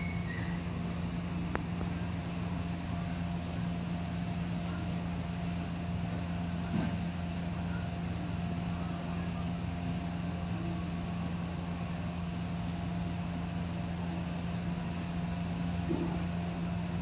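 Steady low hum of a running machine, unchanging throughout, with a faint thin tone above it.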